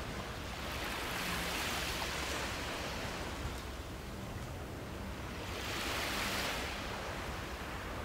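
Small waves washing onto a sandy beach, with two gentle swells of surf about two seconds in and again near the end.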